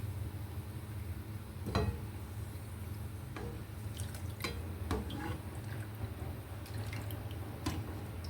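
Sliced onions frying in hot oil, with scattered sharp pops and spits of oil over a steady low hum. The onions are being fried dark, past brown toward black.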